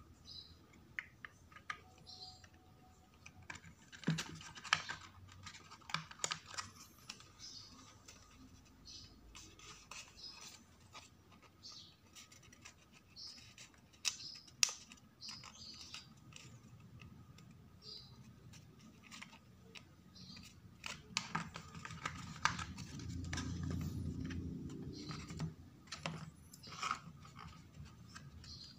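Printed paper model parts being handled, glued and pressed together by hand: scattered rustles, scrapes and small taps, with a longer stretch of rubbing about three-quarters of the way in.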